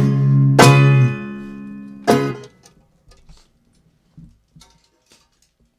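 A rock-and-roll band ending a song on guitar chords. A chord is struck about half a second in and rings out, and a last short chord hit at about two seconds is cut off quickly. A few faint clicks follow.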